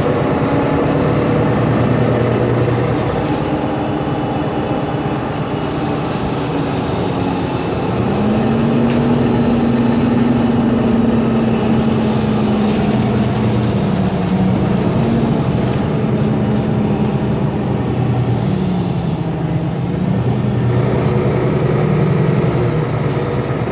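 Mercedes-Benz Conecto G articulated city bus under way, its OM457LA inline-six diesel running steadily. A whine from the drive axle's differential rises about eight seconds in, holds, then slowly falls and shifts in pitch as the bus changes speed.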